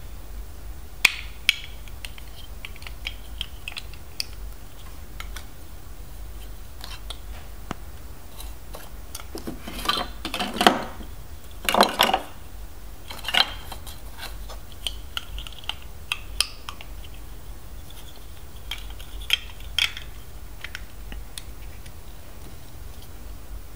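Plastic LEGO DUPLO bricks clicking and clattering as they are handled, pulled apart and snapped together, with scattered single clicks and a louder clatter of bricks about halfway through.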